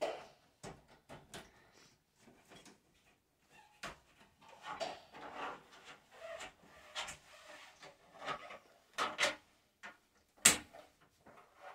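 Door stopper being fitted onto the glass sliding door of a corner shower: scattered taps, clicks and short scrapes of handling against the glass panel and its frame. The loudest is a single sharp knock about ten and a half seconds in.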